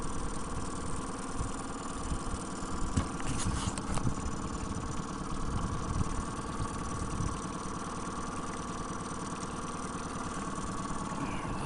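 Boat engine running steadily at low idle, a constant low hum, with a few faint clicks a few seconds in.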